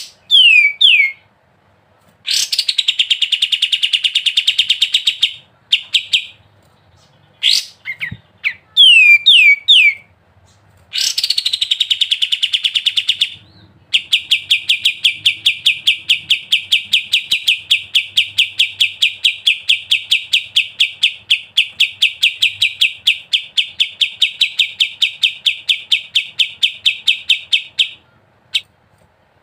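A kapas tembak songbird singing: short runs of quick downward-sweeping whistled notes alternate with rapid buzzy trills, then a long, even, rapid trill of about fourteen seconds, the 'ngebren' song prized by bird keepers.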